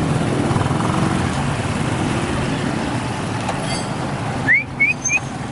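Steady rumble of a motor vehicle running, with a quick rising high chirp and two shorter chirps near the end.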